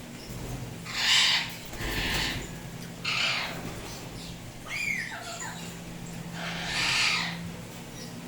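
Indian ringneck parrot calling: a series of short, harsh squawks a second or two apart, with one falling whistled note about halfway through.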